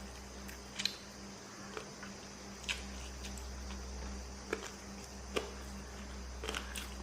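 Someone biting and chewing chicken lollipop close to the microphone: scattered short wet smacks and crunches, about one a second, over a steady low hum.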